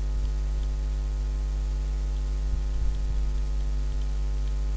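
Steady electrical mains hum with a buzzy stack of overtones in the recording, with a few faint soft ticks a little after halfway.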